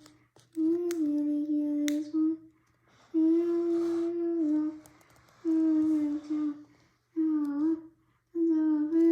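A child humming a slow tune in about five held phrases, each a second or two long with short pauses between them.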